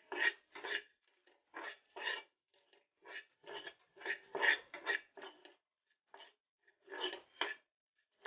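Spatula scraping and stirring spice masala around a non-stick kadhai as the ground spices roast in oil: a run of short scraping strokes, about two a second, with a brief pause about two-thirds of the way through.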